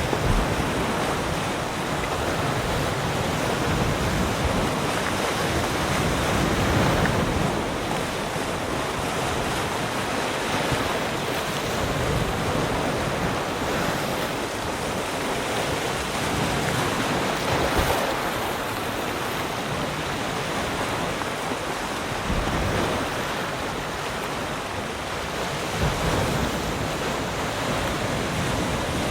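Sea surf: waves breaking and washing up the shore in a continuous rush that swells and eases every few seconds, with some wind noise on the microphone.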